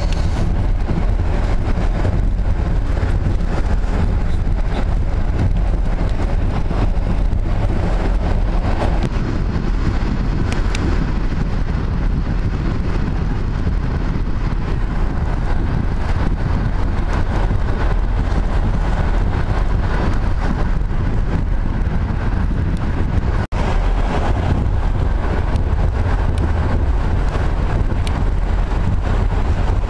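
Passenger train running at speed, heard from inside the carriage: a steady rumble of wheels on the rails mixed with rushing air noise. The sound drops out for an instant about two-thirds of the way through.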